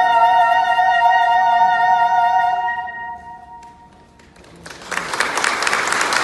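Mezzo-soprano voice and saxophone hold the final note of the duet together, one of them with a wide vibrato, fading out about three seconds in. After a short lull, applause breaks out and carries on to the end.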